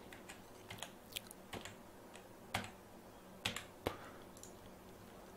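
About half a dozen faint, irregularly spaced clicks of computer input while working in 3D software, over a faint steady electrical hum.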